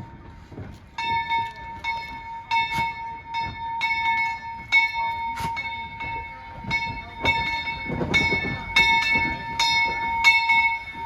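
Steam locomotive bell ringing in a steady swing, struck about two to three times a second, starting about a second in, over the low running noise of the Vulcan 0-4-0T tank locomotive.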